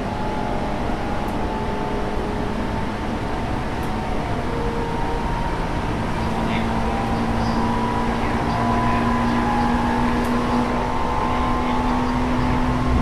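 Tokyu 9000 series electric train with Hitachi GTO-VVVF traction equipment running between stations, heard from inside the car. There is a steady rumble of wheels on rail under motor and inverter tones, one of which rises slowly in pitch in the second half as the sound grows a little louder.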